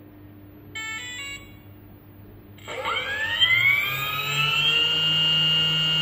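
2M2 Magic Tank key cutting machine's spindle motor spinning up: a whine that starts about two and a half seconds in, rises in pitch for about two seconds and then holds steady. A short beep comes about a second in.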